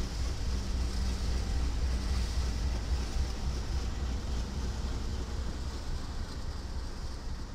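Diesel-electric freight locomotive's engine running as it passes close by, a steady deep rumble with a hiss over it.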